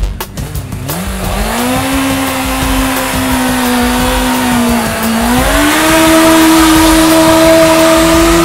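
Honda 650 inline-four motorcycle engine held at high revs during a burnout, the rear tyre spinning and hissing on concrete. The revs climb about a second in, hold steady, dip briefly about five seconds in, then climb higher and hold.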